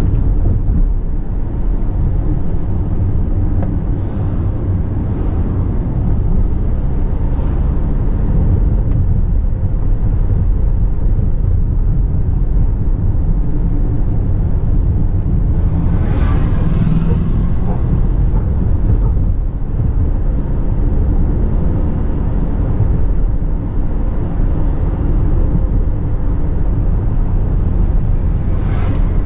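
Car interior while driving through town: steady low engine and road rumble, with a brief rush of louder noise about sixteen seconds in.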